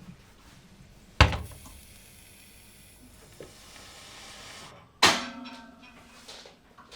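Kitchen clatter at breakfast: a sharp knock, then a steady hiss for about three seconds, then a second knock that rings briefly, as when crockery is set down.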